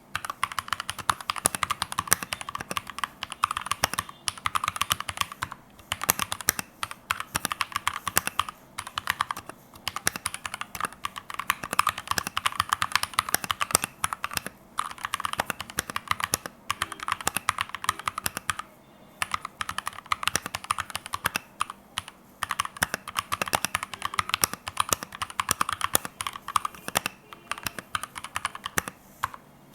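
Fast continuous typing on a Keychron K2 version 2 mechanical keyboard with brown tactile switches: rapid runs of key clicks and clacks with brief pauses every couple of seconds.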